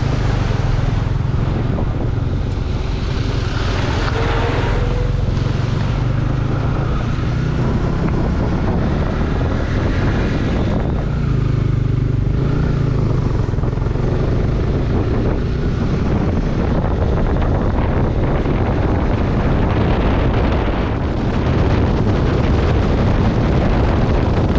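Wind buffeting the microphone of a moving motorcycle: a steady, loud rush with a low rumble of engine and road noise underneath.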